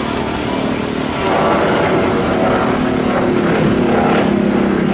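Boeing 737-900ER's twin CFM56 jet engines at takeoff climb thrust: a loud, steady jet roar with a droning hum, growing louder about a second in.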